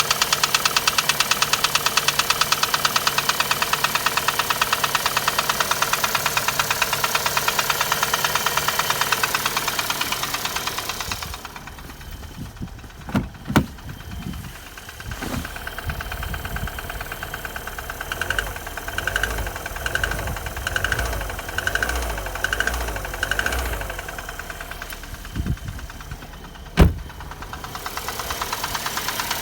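Chevrolet Cruze 1.8 four-cylinder petrol engine running with a rapid, even knock. About eleven seconds in the sound becomes quieter and muffled, with a few thumps and a sharp click, and the loud knocking returns near the end.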